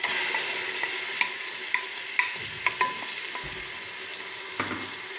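Sliced onions sizzling as they drop into hot vegetable and olive oil in a pressure cooker pot and are stirred with a wooden spoon. The sizzle jumps up at the start as the onions hit the oil, and the spoon knocks sharply several times, each knock ringing briefly.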